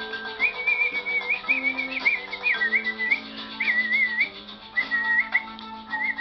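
A person whistling a melody with quick warbling ornaments on the notes, over a karaoke backing track of sustained accompaniment.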